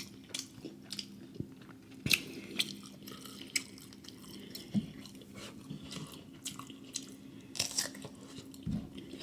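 A person chewing close to the microphone, with scattered wet mouth clicks and smacks, about a dozen in all, over a faint steady hum.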